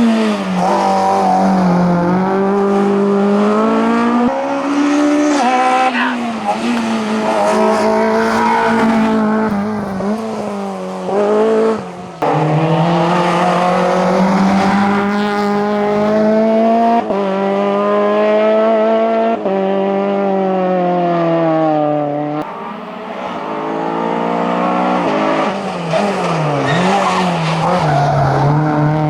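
Racing car's engine at full throttle on a hillclimb run, revs climbing and then dropping sharply at each gear change, several times over.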